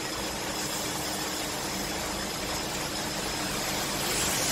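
A steady engine-like hum under an even hiss, the hiss growing a little louder near the end.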